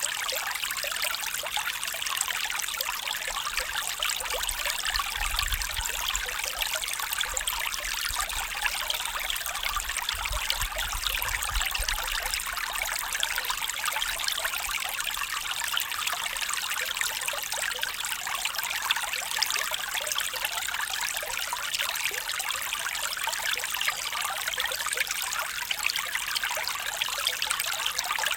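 Small stream trickling and burbling over stones, a steady dense babble of water with a faint low rumble now and then.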